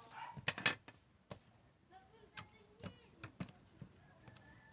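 Irregular sticky clicks and small wet pops from homemade white glue slime being kneaded and stretched by hand, several close together in the first second, then scattered.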